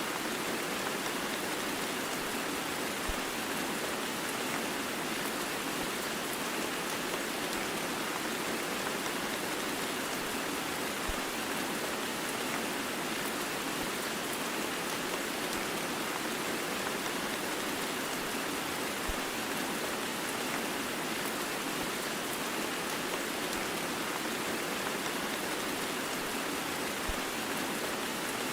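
Heavy rain blended with white noise: an even, steady hiss with little bass. A faint low tick comes about every eight seconds.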